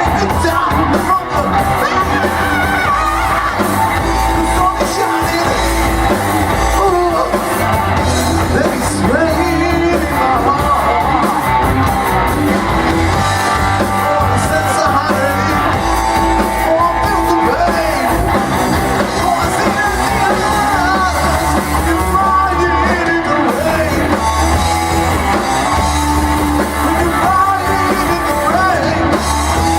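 Rock band playing live, a singer's voice over the full band with a steady bass and drum beat.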